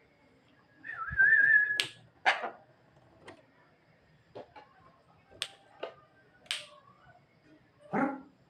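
Javan myna giving a wavering whistle about a second in, followed by a scattered series of short, sharp calls and clicks.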